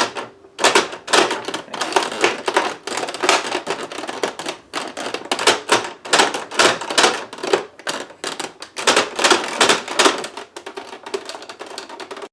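Rapid, irregular clicking and knocking of hard plastic toy parts being handled and fitted together.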